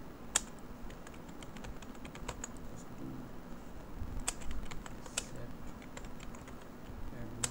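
Typing on a computer keyboard: an irregular run of key clicks with a few sharper, louder strokes.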